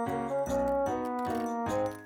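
Background music: a bright melody over chords and a bass line, the notes changing several times a second.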